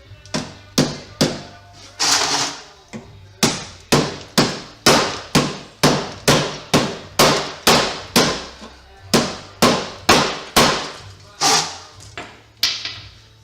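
A hammer striking riveted sheet steel on a car body: about twenty sharp, ringing blows, roughly two a second, with brief pauses.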